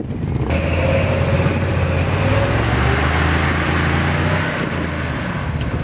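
Lifted Ford pickup truck's engine revving up hard about half a second in and held at high revs under heavy load, the truck stuck in a sand pit and clawing nose-up to climb out. The revs ease off slightly near the end.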